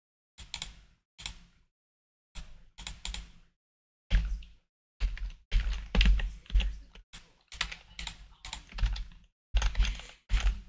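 Computer keyboard typing in irregular bursts of keystrokes, with dead silence between the bursts.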